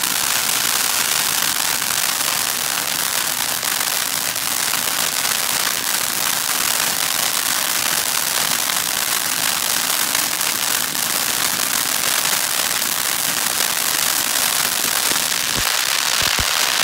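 Major League Pyro 'Freak Show' fountain firework spraying sparks with a loud, steady, dense crackling hiss. Near the end, sharper pops and cracks break through the hiss.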